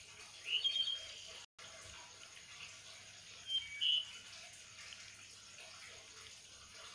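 Steady background hiss with two brief clusters of short, high-pitched chirps, one about half a second in and one about three and a half seconds in.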